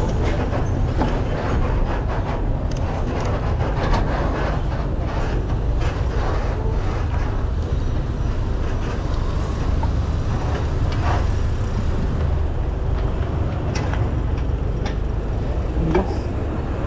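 Street traffic noise led by the engine of a city bus running alongside, with a steady low rumble of wind and road noise on the bicycle-mounted camera and scattered clicks and knocks from the bike rolling over the road.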